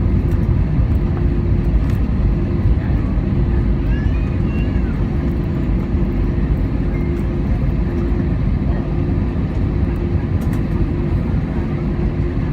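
Steady cabin noise of an Airbus A320-216 taxiing after landing: its CFM56 engines at idle and the air conditioning produce a low rumble with a steady hum.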